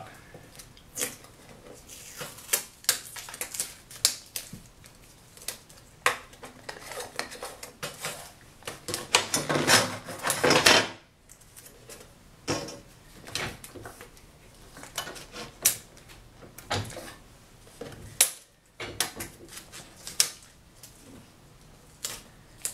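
Scattered small clicks, taps and clatters of a steel tape measure and the paper gauge being handled and set on a wooden board shear bed. About nine to eleven seconds in comes a longer, louder scraping rattle.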